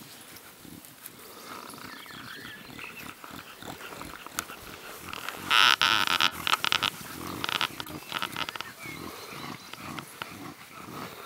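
Staffordshire bull terrier puppies and adult dogs playing together and vocalising in short, irregular bursts, with a louder, higher burst of sound a little past halfway.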